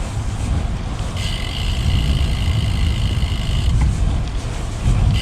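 Riding a road bike: wind buffeting the microphone and tyre rumble, with the rear hub's freewheel ratchet buzzing steadily while coasting from about a second in until near four seconds.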